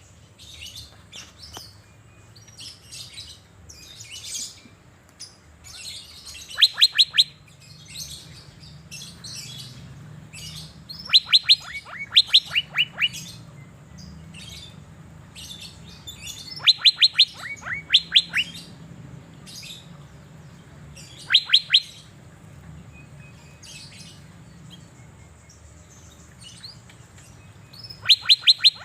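Asian fairy-bluebird (cucak biru) singing: every few seconds a quick burst of several sharp whistles, each falling in pitch, with softer short chirps in between.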